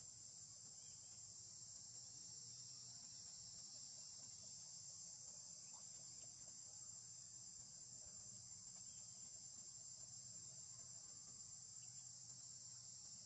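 Faint, steady high-pitched insect chorus, an unbroken shrill drone with no change in pitch or loudness.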